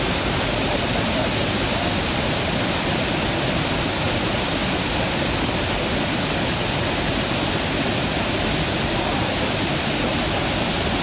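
The Rhine Falls on the High Rhine, a 23-metre waterfall 150 metres wide, with its water pouring over the rocks in a loud, steady rush.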